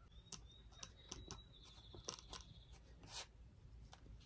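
Near silence, with faint scattered clicks and light handling noises from a wooden-handled grafting knife being turned over in the hands. A faint, thin, high steady whistle sits under it for about two and a half seconds just after the start.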